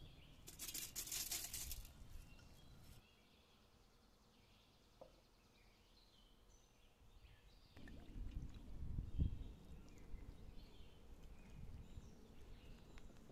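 Food-preparation sounds: a brief pouring rush about half a second in, then faint bird chirps, then low knocks and handling noise in the second half as flour is stirred with liquid in a bowl.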